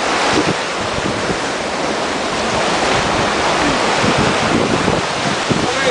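Loud, steady rush of churning white water around a river rapids ride raft, with wind buffeting the microphone.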